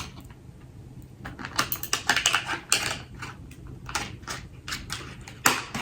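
Travel cutlery set pieces clicking and tapping against each other and the case as they are arranged in it: an irregular run of light clicks.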